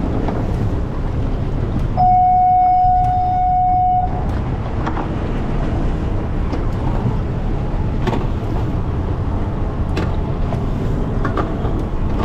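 Steady wind and boat noise on an open boat at sea. About two seconds in, a loud electronic beep holds one steady pitch for two seconds, then stops.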